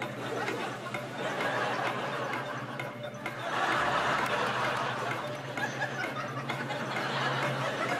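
Studio audience laughing and chuckling, swelling to a peak about four seconds in.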